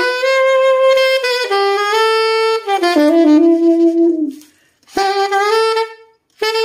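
Brand-new tenor saxophone being played: a slow phrase of long held notes stepping between pitches, with two short breath pauses near the end. The horn seals without air leaks.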